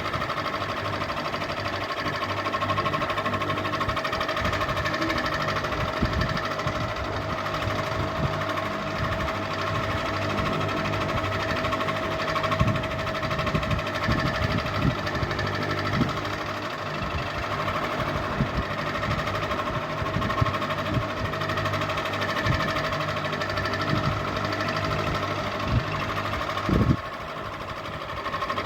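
Ceiling fan running steadily: a constant motor hum and whine, with irregular light clicks and knocks, and a louder knock near the end.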